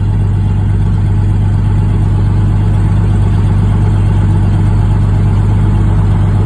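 Zlin Z-142C's piston engine and propeller running steadily at low power while the plane taxis, heard from inside the cockpit as a loud, even drone with a deep hum.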